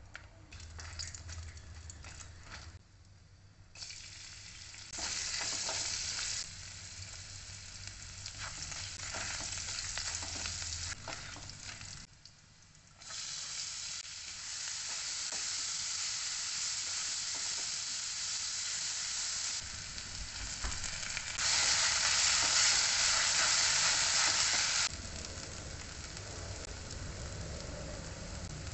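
Whole spices sizzling in hot oil in a kadai, then chopped onions frying with a louder, steady sizzle from about halfway on, stirred with a spatula that clicks and scrapes on the pan. The sizzle is loudest for a few seconds near the end.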